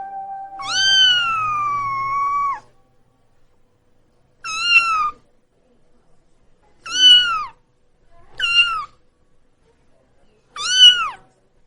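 A cat meowing five times: one long, drawn-out meow near the start, then four shorter meows spaced a second or two apart, each falling in pitch at the end.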